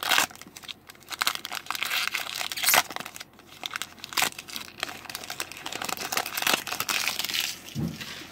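Foil wrapper of a Magic: The Gathering Core Set 2020 booster pack crinkling and crackling as it is handled and torn open, with sharp crisp snaps among the rustling.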